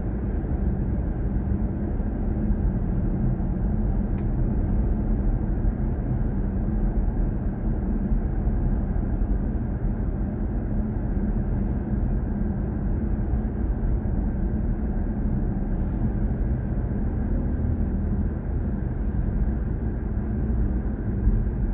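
Steady low road and tyre rumble of a BMW i4 M50 electric car cruising, heard inside the cabin.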